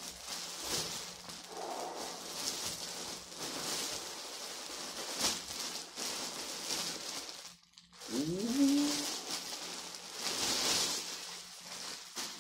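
Clear plastic bag crinkling and rustling as a jacket is handled inside it. The crinkling stops briefly about two-thirds of the way through, then a short vocal exclamation rises in pitch as it resumes.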